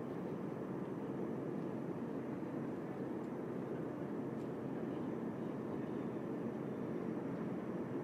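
Quiet daytime ambience of a film studio lot: a steady, even low rumble of distant background noise with no distinct events.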